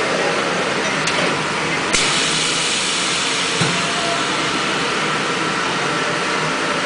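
High-frequency plastic welding machine running with a steady mechanical noise. About two seconds in there is a sharp click, followed by a faint steady whine, and a short low knock comes a moment later as its mould tray shuttles in under the press.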